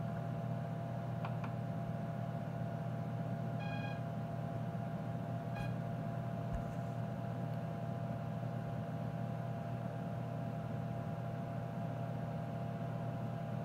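Tektronix 4054A computer running with a steady electrical hum, giving a short beep about four seconds in and a briefer one near six seconds.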